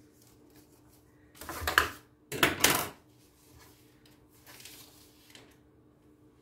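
Two short, loud scraping rattles about a second apart as the metal baking tray is shifted on the counter, then softer scraping of a silicone spatula spreading batter over the parchment.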